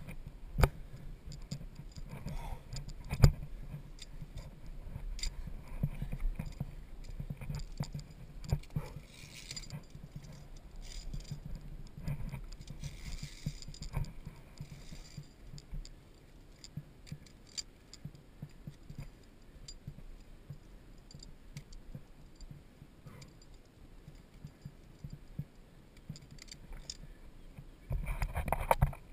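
Via ferrata carabiners clinking and scraping on the steel safety cable as a climber moves along it: a run of sharp metallic clicks and jangles, two loud ones in the first few seconds, growing sparser after about halfway, over low rumbling handling and wind noise on the helmet camera. A short burst of louder noise comes near the end.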